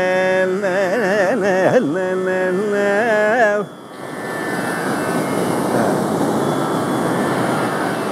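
Male Carnatic vocal aalaapanai in Raga Bhairavi, the voice sliding and wavering through ornamented phrases, then breaking off about three and a half seconds in. The steady roar of ocean surf breaking on the beach then fills the rest.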